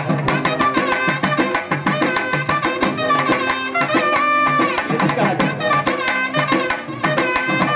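Live South Indian folk music: a reed wind instrument plays a bending, gliding melody over rapid drumming.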